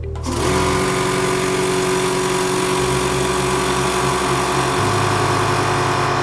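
Air compressor starting up about a third of a second in and running steadily with a hum and a hiss, over background music.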